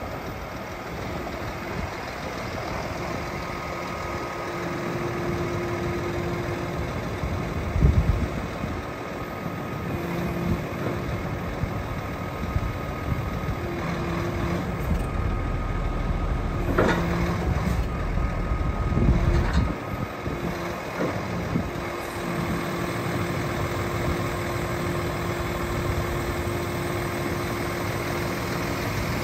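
Diesel engine of a Scania R410 crane truck running while its loader crane's hydraulics work the boom, with a whine that comes and goes as each crane function is operated. A loud clunk comes about eight seconds in, and some clanking a little past halfway.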